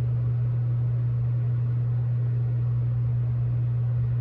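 Steady low hum of a small motor running without change, drying false-lash glue.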